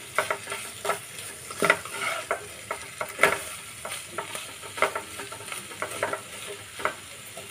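A spatula stirring and scraping spiny gourd slices and grated coconut around a nonstick frying pan, irregular scrapes and taps over a steady sizzle of frying.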